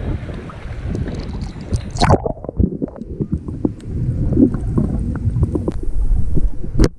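Shallow seawater splashing and sloshing around a camera at the surface. About two seconds in, the sound turns muffled and low as the camera goes underwater: a bubbling, rumbling underwater wash with small clicks, and one sharp click near the end.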